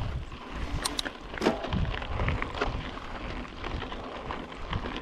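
Yeti SB5 mountain bike riding over a dirt trail: tyre and trail noise with low rumbling wind on the microphone, and a few sharp rattling clicks from the bike.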